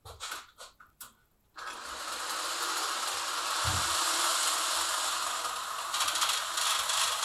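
HO-scale slot car running on the track under a hand controller: a steady mechanical whir of small motor and gears that starts suddenly about a second and a half in, after a few light clicks, with one low thump partway through.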